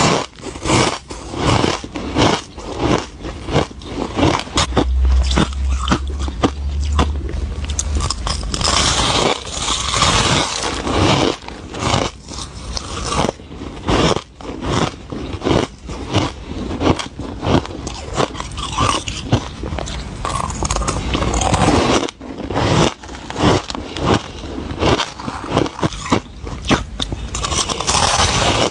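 Soft, powdery white ice being bitten and chewed close to the microphone, a rapid, uneven stream of crisp crunches and scrapes.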